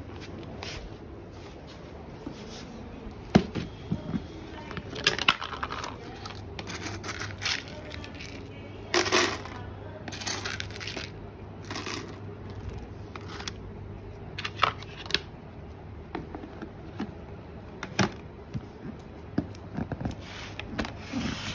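Irregular clicks, knocks and rustling bursts of a plastic cat-food container and bowl being handled, with dry kibble rattling into a plastic bowl while a cat eats.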